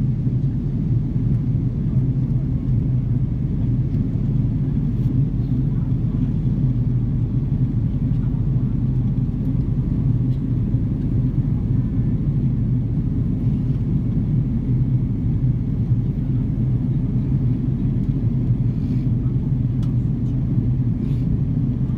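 Cabin noise of an Airbus A330-300 climbing after takeoff, heard from a window seat over the wing: a steady low rumble of engines and airflow.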